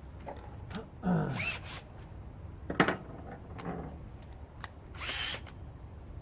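Cordless drill-driver run in two short bursts, about a second in and again about five seconds in, the first rising in pitch as it spins up, taking fasteners out of a Razor scooter during a teardown. Sharp clicks and knocks of parts being handled come between, one loud knock near the middle.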